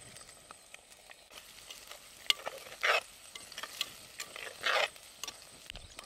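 Small fish frying in oil with onions and spices in an earthen pot: a faint sizzle with scattered crackles, and a few short louder bursts of stirring around the middle and near the end.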